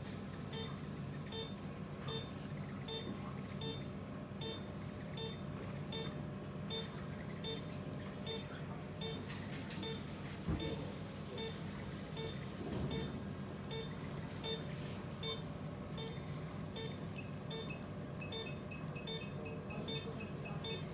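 Anaesthesia patient monitor beeping steadily, about two short beeps a second, following the anaesthetised dog's pulse, over a steady low equipment hum. Near the end a second, higher beep joins in, repeating faster.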